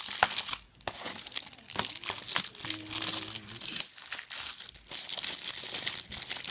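Clear plastic shrink wrap crinkling and tearing as it is peeled by hand off a Blu-ray case: a busy run of crackles, pausing briefly under a second in.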